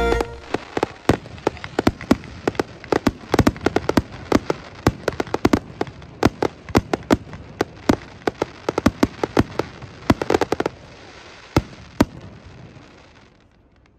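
Fireworks display: a fast, dense string of pops and bangs from bursting shells, several a second. Near the end it thins to two last single bangs and dies away.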